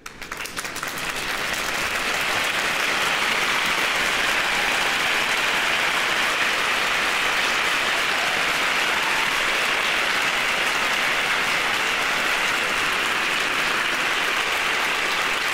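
Applause from a large crowd, dense clapping that swells in over the first second or two and then holds steady.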